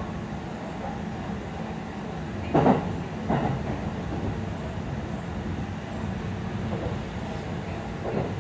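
Running noise of a JR Central 315 series electric train, heard from inside the car while moving: a steady rumble of wheels on rail. Two louder knocks come about two and a half and three and a half seconds in.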